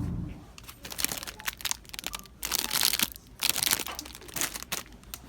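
Crinkly material being handled, rustling and crackling in a string of short bursts.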